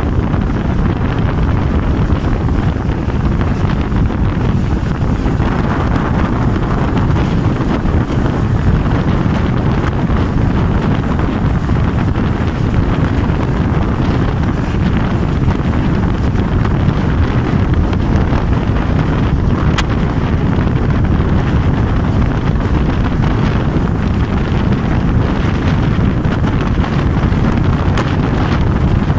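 Steady, loud wind buffeting the microphone of a phone held out of a moving train's window, over the running noise of the train on the track.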